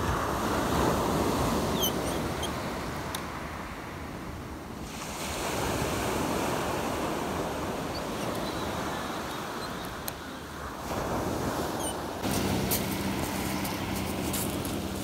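Sea surf breaking and washing up a sand-and-pebble beach, swelling and easing every few seconds as each wave comes in.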